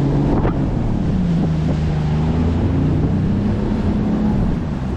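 Fishing boat's motor running with a steady low hum, its pitch dipping about a second in and climbing back, with wind buffeting the microphone.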